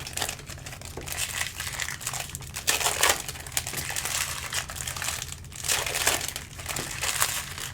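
Foil trading-card pack wrappers and cards crinkling and rustling in irregular bursts as football card packs are opened and handled.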